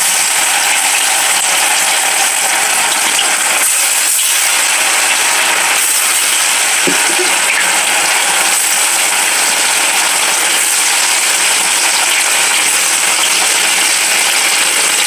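Small fish deep-frying in hot oil in a kadai: a steady, loud crackling sizzle.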